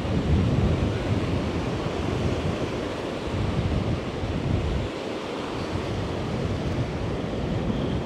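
Strong wind buffeting the microphone: a low rumble that swells and falls in gusts over a steady rushing hiss. The gusts are strongest near the start and around four seconds in, and ease slightly about five seconds in.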